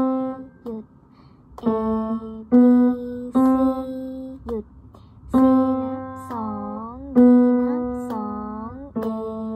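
Single notes played slowly one at a time on a pitched instrument, as in a beginner's lesson, about one a second. The later notes are held longer and bend down and back up in pitch near their ends.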